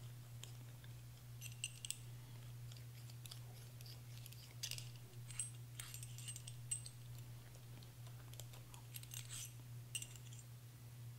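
Faint, scattered small metal clicks and scrapes as an AR-15 firing pin is turned inside a CAT M-4 scraper tool, breaking carbon buildup off the pin's shoulder. A steady low hum runs underneath.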